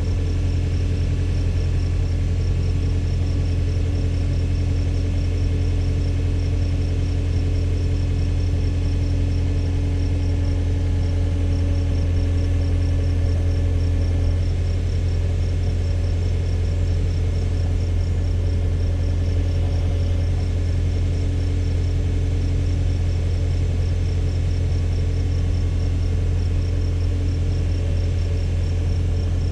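Engine of a Case tractor-mounted Davis D100 backhoe idling steadily, with a faint high ticking at about four ticks a second.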